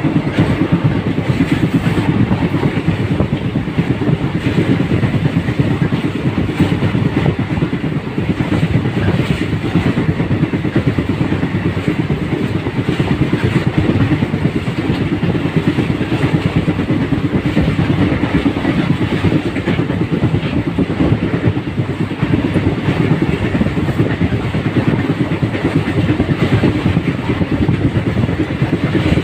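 Steady, loud rumble of a vehicle in motion, with no distinct events.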